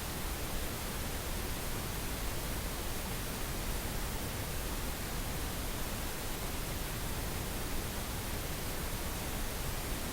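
Steady synthetic pink noise, an even hiss spread from low rumble to high treble with no changes.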